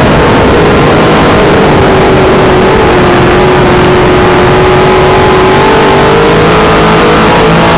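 Dirt-track race car's V8 engine heard from inside the cockpit, very loud throughout. Its note falls over the first couple of seconds, holds lower through the middle, then climbs again near the end as the car comes back on the throttle.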